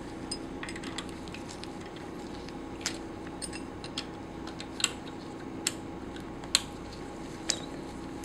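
Scattered metallic clicks and taps of a hand tool on the screws of a Pfeiffer vacuum pump's piston assembly as they are tightened a bit at a time in turn, with about five sharper clicks in the second half, over a steady hum.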